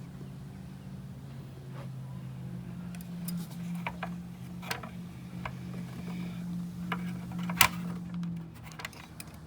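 Scattered metal clicks and knocks as a piston with its rings is worked into a Detroit Diesel cylinder liner, the sharpest knock about three-quarters of the way through, over a steady low hum.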